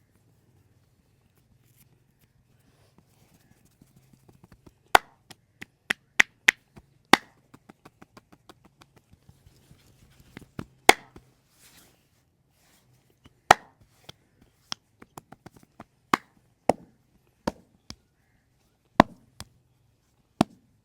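A masseur's hands striking during an Indian head massage: sharp, irregular slaps and snaps, about ten loud ones, with a fast run of lighter taps about halfway through.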